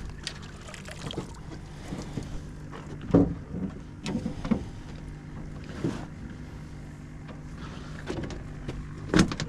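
Irregular knocks and thumps in a fishing boat, the loudest about three seconds in, over a steady low hum.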